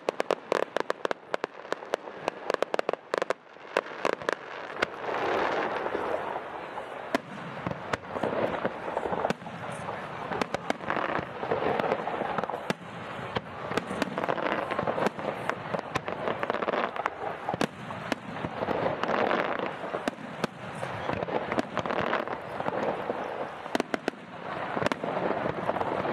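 Fireworks display: aerial fireworks bursting in a long run of sharp bangs and crackles, most rapid in the first few seconds, over a continuous wash of noise.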